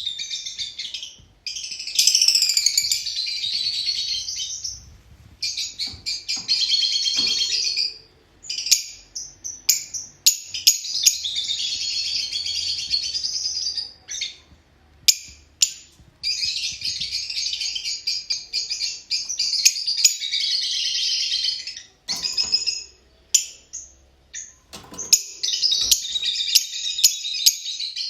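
Fischer's lovebirds chattering: dense, high-pitched twittering in runs of a few seconds, broken by short gaps and sharp single chirps.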